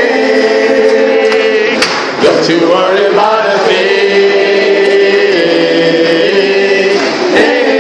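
Choir singing loud and close: several voices holding chords that move to a new chord every second or so.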